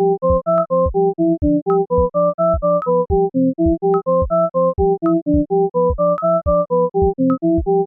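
Background music: a bright synthesizer keyboard melody of short notes stepping up and down, over a steady low note and an even thumping beat.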